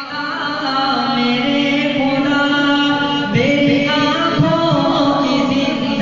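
Male voice singing an Urdu hamd, a devotional hymn to God, in long held notes, stepping up in pitch a little over three seconds in.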